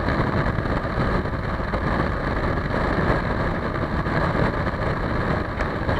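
Motorcycle under way on a wet road: a steady rush of wind and road noise with the engine running underneath.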